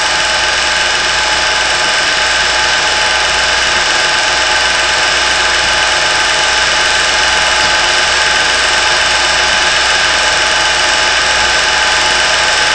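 A small motor whirring steadily with a constant hum and several fixed tones that never change in pitch or level.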